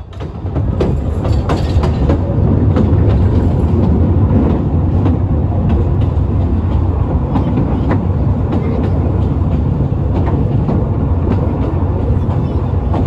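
Narrow-gauge passenger carriage of the Talyllyn Railway running along the line, heard from on board: a steady low rumble of wheels on rail with repeated clicks over the rail joints. It comes up over the first second.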